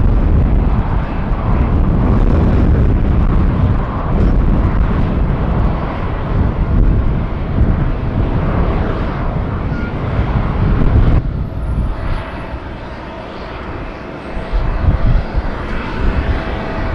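Jet airliner engines on a landing approach: a loud, steady rumble with a faint whine. It eases for a couple of seconds about two-thirds of the way through, then builds again.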